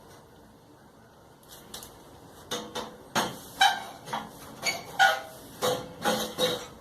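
A series of about ten sharp knocks on the Brastemp clothes dryer's metal body, a few ringing briefly, as parts are tapped into place during reassembly.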